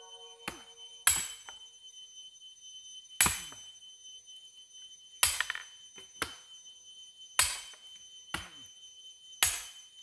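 Axe blows splitting firewood logs, a heavy chop about every two seconds with lighter chops from other choppers in between. A faint steady high tone runs underneath.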